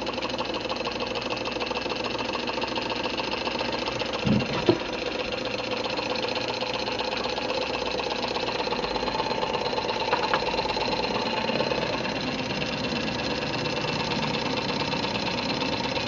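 Small aluminium-bodied Maidstone Engineering Stirling hot air engine running steadily just after starting, a fast, even mechanical whirr from its piston and flywheel linkage. Two brief knocks about four seconds in.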